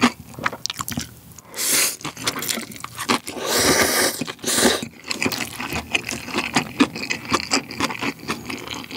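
A person slurping Chapagetti black-bean instant noodles, a short slurp a little under two seconds in and a longer, louder one near the middle, with wet chewing and mouth clicks between and after.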